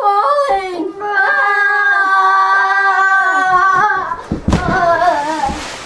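A child's voice holds one long, steady, sung or wailed note for about three seconds. Near the end a low thud and a rustling noise come in under a wavering voice.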